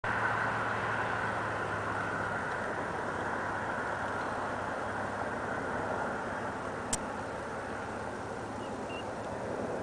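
Distant roar of a Boeing 747-400's four turbofan engines at takeoff power as the airliner rolls down the runway, a steady noisy rumble that eases slightly. A single sharp click about seven seconds in.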